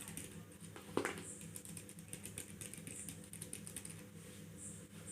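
Computer keyboard keys being pressed in quick succession, a run of light clicks with one louder key strike about a second in.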